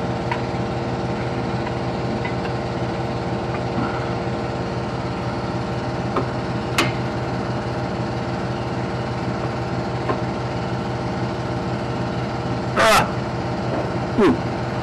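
A steady mechanical hum made of several even tones, with a few short sharp clicks or knocks over it, the loudest near the end.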